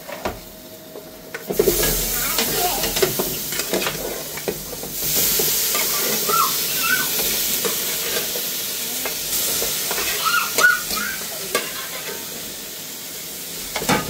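Metal skimmer ladle clinking and scraping against a metal cooking pot and pan as boiled meat is scooped out, over a steady hiss from the pot on the gas stove. The hiss starts about a second and a half in and grows louder a few seconds later.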